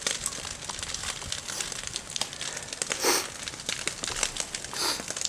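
Brush fire crackling, a dense run of small sharp pops and snaps, with two short hissing rushes about three and five seconds in.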